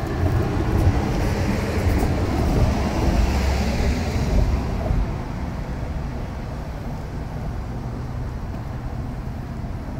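A motor vehicle passing: its engine rumble and tyre hiss swell and then fade over the first five seconds, leaving a steadier low rumble.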